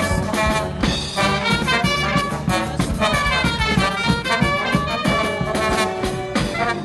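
Street brass band playing live: trumpets, trombone, saxophones and sousaphone over a snare drum and bass drum.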